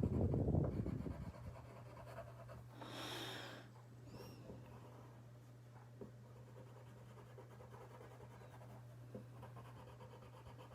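Faint scratching of a colored pencil shading on paper, over a steady low electrical hum. A loud low rumble at the start, as of a breath or a bump on the microphone, is the loudest sound.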